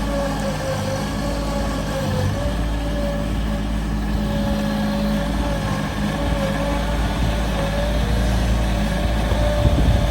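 Diesel engine of an excavating machine running steadily under load, with a wavering whine riding above the low drone.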